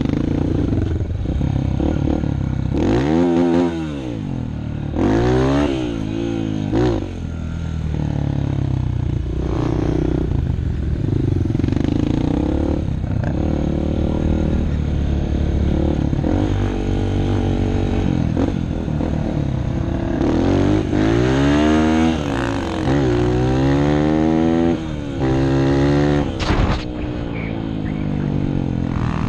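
Honda CRF150F dirt bike's four-stroke single-cylinder engine, heard from the bike being ridden, revving up and easing off again and again through the gears, with brief drops as the throttle is rolled off.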